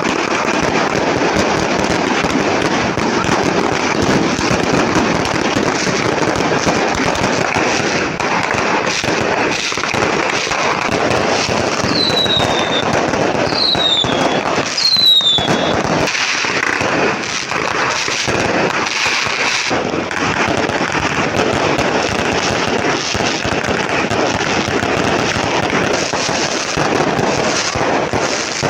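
Fireworks and firecrackers going off in a dense, continuous crackle and popping. About halfway through, three short falling whistles sound one after another.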